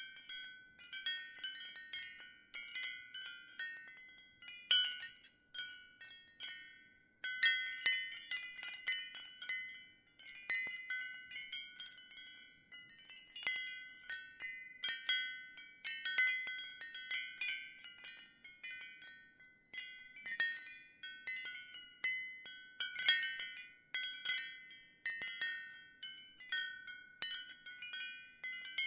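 Wind chimes ringing in irregular clusters of strikes, several high-pitched tones overlapping and fading after each strike, with brief lulls between clusters.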